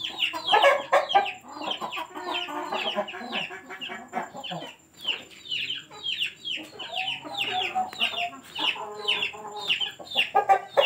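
Chickens calling: a steady run of short, high chirps that fall in pitch, about three a second, with lower clucks coming in at times.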